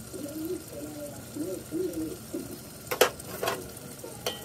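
A few short, low cooing notes, each rising and falling, then two sharp metallic clinks of a ladle against the steel cooking pot about three seconds in, and a lighter clink near the end.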